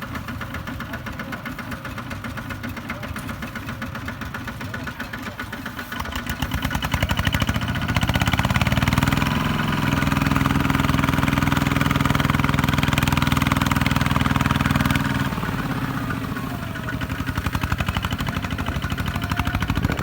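Single-cylinder diesel engine of a two-wheel walking tractor running with a fast, steady knock. It revs up about six seconds in, holds at the higher speed, then eases back about fifteen seconds in.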